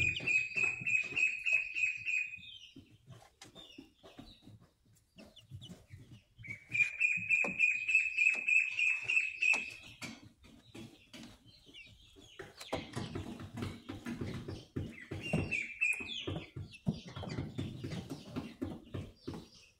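Young White Leghorn chickens calling: two long, rapid high trills, one at the start and one about halfway, then a shorter trill among a stretch of low knocks and rustling.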